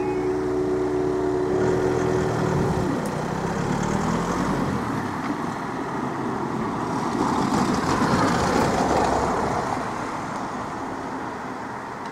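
Road traffic over a level crossing as its barriers lift: a vehicle's engine pulls away about three seconds in, and another vehicle passes close about eight seconds in, then fades. Until about three seconds in, a steady low two-note hum from the crossing cuts off suddenly.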